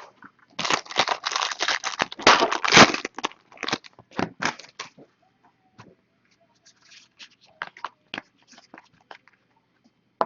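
Wrapping being torn and crumpled off a sealed trading-card mini box, a dense rustle for the first few seconds, then scattered crinkles that thin out to faint ticks.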